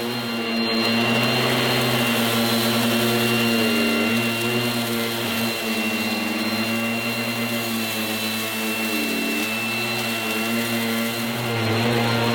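1980s Goblin Roto mains-powered handheld vacuum cleaner with a revolving brush, running loudly with a steady high whine. Its lower motor hum wavers and dips in pitch a few times.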